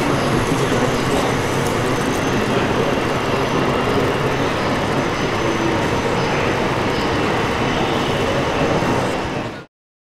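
RC Claas Xerion 5000 model tractor running steadily while dragging a cultivator through soil, over a dense background din, fading out sharply near the end.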